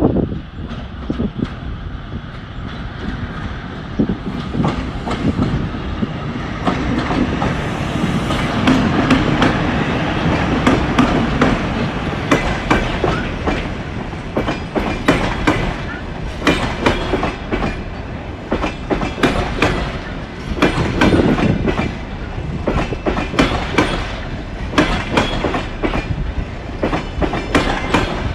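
EP2K electric locomotive hauling a passenger train past at close range, first a steady rumble with a low hum. From about a third of the way in comes a dense clickety-clack of the carriages' wheels over the rail joints.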